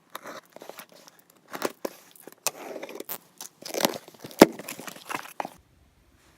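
Something being handled at close range: rustling and crinkling mixed with irregular sharp clicks and taps, the loudest tap about four and a half seconds in.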